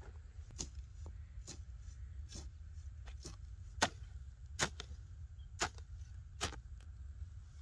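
Short-handled hoe chopping into dry soil and grass: about ten sharp chops, roughly one a second, the loudest in the second half, over a low steady rumble.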